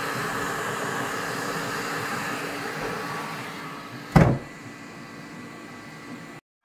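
Flashforge Adventurer 5M Pro 3D printer running mid-print with a steady mechanical hum. About four seconds in, a single sharp knock as the enclosure door is shut, and the printer sounds more muffled after it.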